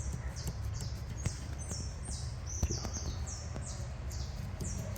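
A bird chirping repeatedly: a quick run of short, high chirps, each falling in pitch, about three a second, over a steady low hum, with a few faint knocks.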